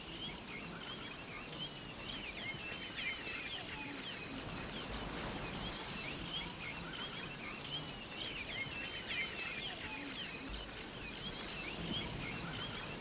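Many birds calling over one another, a steady stream of short chirps that rise and fall in pitch, over faint outdoor background noise.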